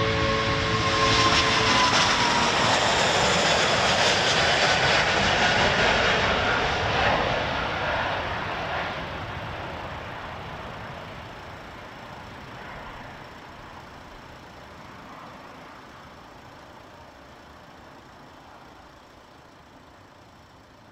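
Airbus A380's four turbofan engines at take-off thrust as the jet lifts off and climbs out: a loud rushing roar with a falling whine, fading steadily as it climbs away.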